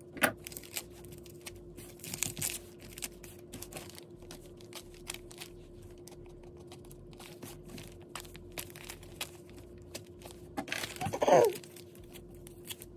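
Foundation paper and fabric quilt blocks rustling and crinkling as they are handled, with small clicks and snips of scissors clipping threads. A louder rustle comes about eleven seconds in.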